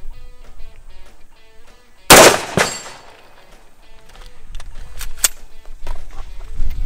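A single rifle shot about two seconds in from a short-barreled rifle firing 55-grain 5.56 mm ball point blank into a body-armor plate, followed about half a second later by a second, weaker crack. Plucked guitar background music plays faintly underneath.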